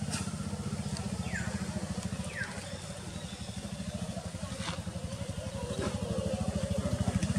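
A small engine running steadily with a fast, even low pulse. Two short high squeaks, falling in pitch, come about a second in and again a second later.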